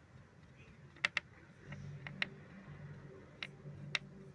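Scattered sharp clicks and light taps, about seven in all, over a low steady hum that grows a little louder part-way through.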